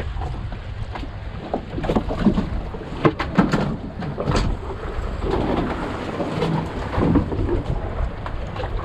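Wind buffeting the microphone over a boat rocking at sea, with a cluster of sharp knocks and thuds on deck about two to four and a half seconds in, and a few more dull thumps later.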